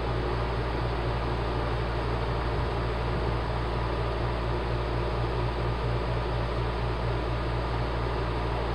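Model railroad coal train's cars rolling steadily along the track, a continuous whir with a low hum beneath it.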